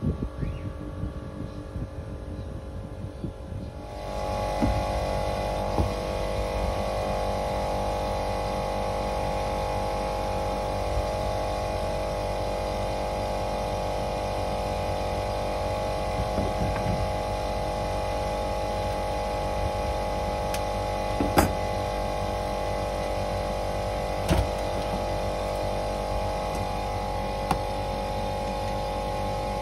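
Old R22 air-conditioning unit running: a steady mechanical hum of several tones that comes in about four seconds in, with a few sharp clicks later on.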